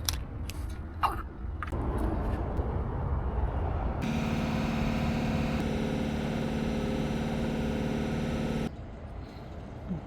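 1987 Ford Mustang GT 5.0 V8 being tried on the key: about four seconds in, a steady, even-pitched mechanical whine runs for nearly five seconds and then cuts off suddenly, without the engine catching. This is the car's no-start, blamed on a bad battery cable connection.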